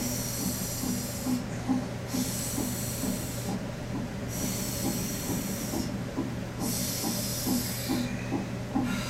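Fetal heart monitor's Doppler speaker giving a rapid whooshing pulse, about two and a half beats a second, over a steady low hum. A high hiss comes and goes every couple of seconds.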